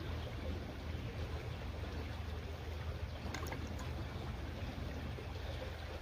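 Small creek trickling over rocks, with steady low wind noise on the microphone.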